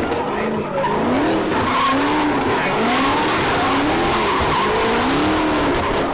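Car drifting: the engine revs up and down repeatedly over a steady hiss of skidding tyres.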